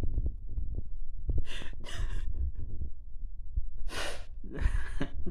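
A man's heavy breathy exhales, two pairs of them, as his laughter dies down, over the low rumble of a handheld phone being moved about.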